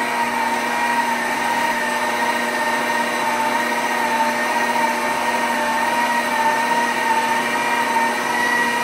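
KitchenAid stand mixer's motor running at a steady speed, driving a pasta roller attachment that is sheeting ramen dough. It gives a steady whine with a higher overtone, wavering slightly in pitch.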